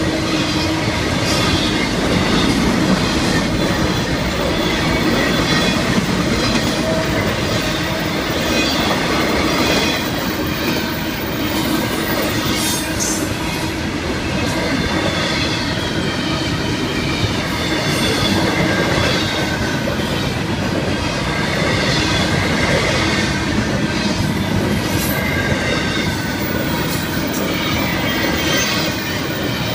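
Double-stack intermodal well cars of a freight train rolling past close by: a steady rumble and clatter of steel wheels on the rails. Thin, wavering wheel squeals rise above it from time to time.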